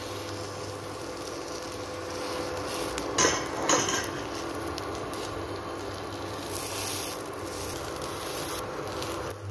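Vegetable omelette batter frying on a hot non-stick tawa with a steady sizzle, while a wooden spatula scrapes and folds it against the pan. About three seconds in come two louder knocks of the spatula, half a second apart.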